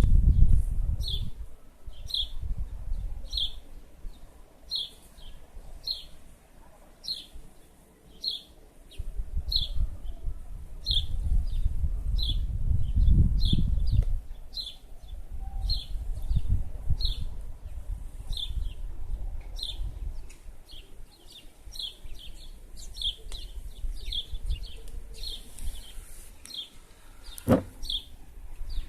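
A small bird chirping over and over, one short high chirp about every three-quarters of a second, with a low rumble swelling and fading underneath. A single sharp click near the end.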